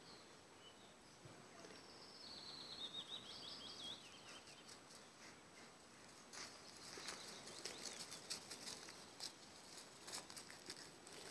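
Faint sounds only: a small bird sings a short trill of chirps that falls in pitch about two seconds in, and from about six seconds on there is light, scattered crackling as a puppy walks and sniffs through dry fallen leaves.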